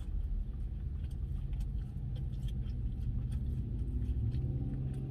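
A car's engine idling steadily, a low even rumble heard from inside the cabin.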